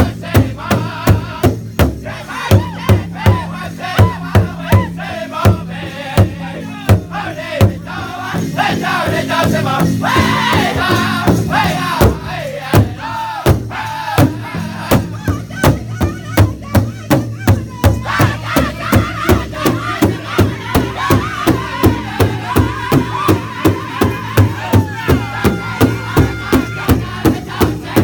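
Powwow host drum group singing a grand entry song: high voices chanting together over a steady, even beat on a large powwow drum. The drumbeats drop out for a few seconds about a third of the way through while the singing goes on, then come back.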